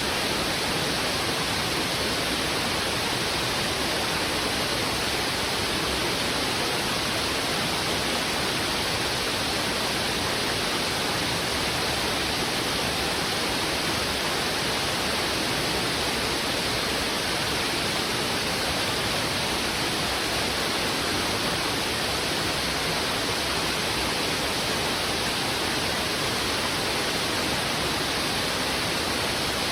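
Heavy river water rushing steadily over rocks, a constant even roar with no breaks or changes.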